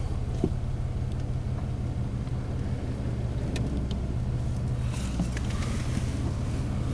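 2003 Pontiac Grand Am GT's 3.4-litre V6 running steadily in gear as the car starts to roll, a low even hum heard from inside the cabin.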